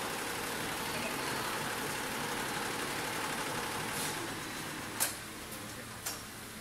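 Butterfly ten-head, nine-needle embroidery machine running, a steady, dense mechanical clatter of many needle heads stitching. About four seconds in the running noise drops, and two sharp clicks follow about a second apart.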